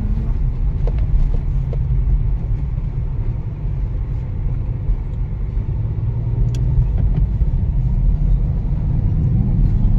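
Steady low rumble of a car on the move: engine and road noise, without let-up.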